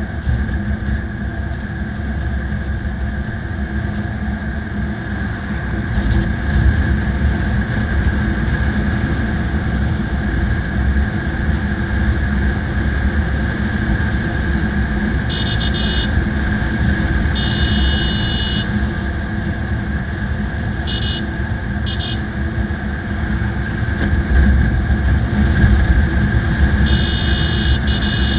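Motorcycle engine running steadily at highway speed, with heavy wind rush on the camera microphone. In the second half a horn sounds five times: a short honk about halfway through, a longer one soon after, two quick blips, and another long honk near the end.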